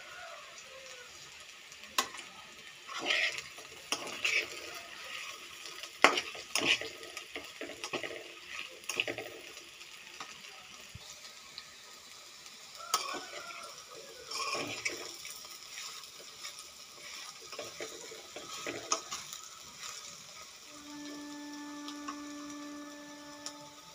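Steel spatula stirring and scraping okra pieces in a metal kadai, with clatters and sharp knocks against the pan over a faint frying sizzle. Near the end a steady humming tone sounds for about two and a half seconds.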